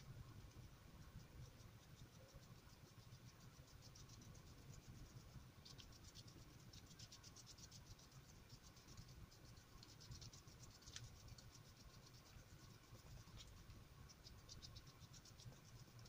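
Faint, rapid scratchy ticking of a filbert paintbrush's bristles dabbing on wet paper, coming in short clusters, over a low steady room hum.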